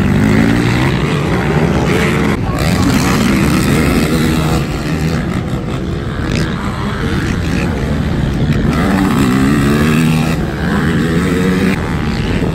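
Racing ATV (quad) engines revving, their pitch climbing and dropping back again and again.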